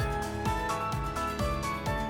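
Background music with a steady beat of about two beats a second and sustained melodic notes.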